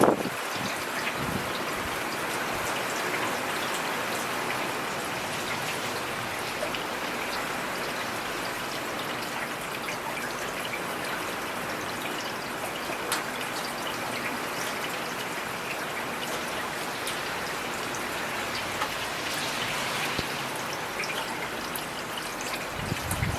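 Heavy rain falling steadily, a dense even hiss of drops with scattered individual drop ticks, and a brief low rumble near the end.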